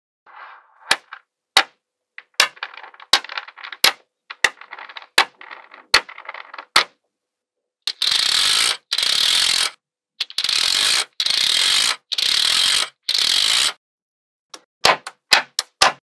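Small magnetic balls snapping together in sharp single clicks, with light rattling between them. In the middle come five stretches of steady hissing rattle, each about a second and a half long and cutting off abruptly, then more sharp clicks near the end.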